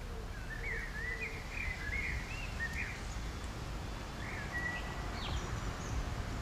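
A songbird singing short warbling phrases for the first three seconds, then again briefly near the end, over a steady low outdoor rumble.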